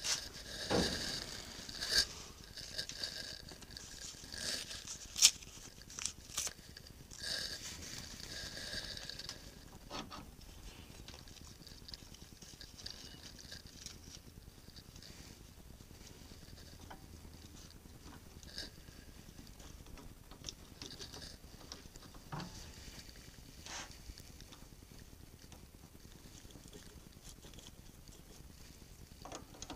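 Metal change gears and nuts being handled on an Atlas lathe's banjo: scattered light clicks and knocks, with scraping and rustling over roughly the first nine seconds, then sparser clicks.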